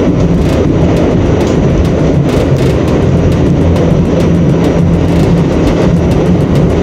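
New York City subway train running at speed: a loud, steady rumble with a low hum, broken by frequent sharp clicks of the wheels over rail joints.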